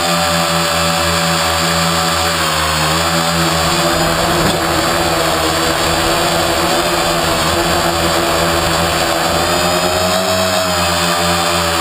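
Quadcopter's electric motors and propellers whining steadily, heard from on board. The pitch dips a few seconds in and rises again near the end as the motor speed changes.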